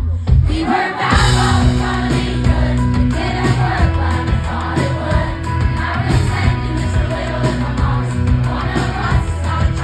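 Live pop song with a female singer's vocals over a band with heavy bass and keyboards, loud and boomy.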